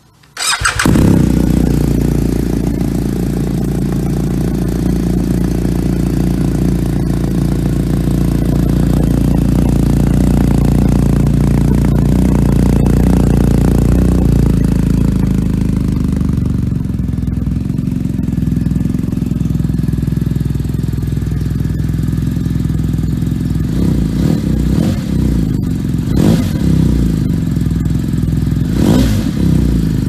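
BMW R1250GS Adventure's boxer twin, fitted with an Akrapovic titanium slip-on exhaust with the dB killer removed, starting up about half a second in and then idling loudly. The idle drops to a lower, steadier beat about halfway through. A few quick throttle blips come near the end.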